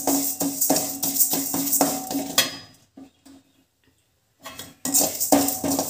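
A perforated metal spoon scraping and clinking against an aluminium kadai, stirring skinned urad dal as it dry-roasts, at about three strokes a second with the pan ringing. The strokes fade out a little over halfway through, go nearly silent, then start again near the end.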